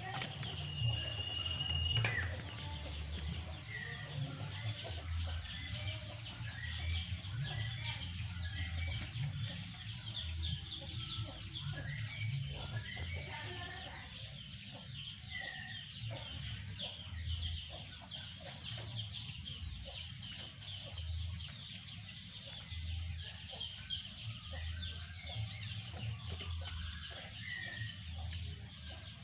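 Chickens clucking with other birds chirping, over a steady high-pitched hiss. There is a short sharp click about two seconds in.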